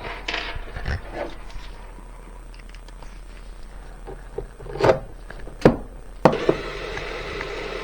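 A few sharp plastic clacks as the generator's cover panel is pressed into place, then a cordless drill starts running at low speed about six seconds in, driving a small cover screw.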